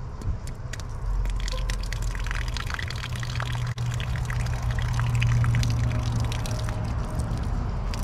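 Cold condensate water trickling and dripping out of a freshly unclogged air-conditioner drain line, falling from the pipe stub in a thin stream. The line is flowing again after an algae clog was cleared. A steady low hum runs underneath and is the loudest sound.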